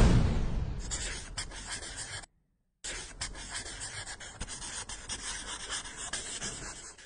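Pen-on-paper scratching sound effect for a hand-drawn logo animation: quick scratchy strokes, broken by a half-second of dead silence a little past two seconds in. It opens with a sudden loud hit that dies away over about two seconds.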